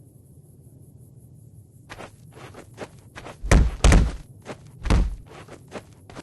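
A run of knocks and clatter starting about two seconds in, with three heavy thuds in the middle.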